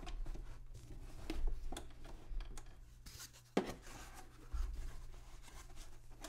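Cloth rubbing and light scuffs as a vintage tape player's cabinet is handled and set upside down on a cloth, with one sharper knock about three and a half seconds in.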